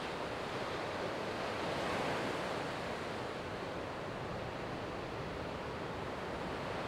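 Ocean surf breaking and washing up the beach: a steady rushing that swells about two seconds in.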